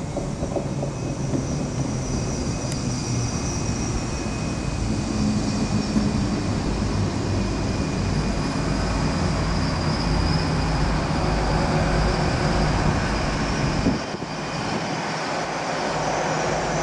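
A train running through a station: a steady low engine note over the rumble of wheels on rail. It builds gradually, dips abruptly about fourteen seconds in, then picks up again.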